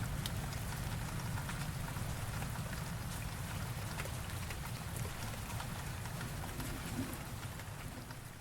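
Steady rain, with scattered drops ticking sharply over a constant hiss and a low rumble underneath.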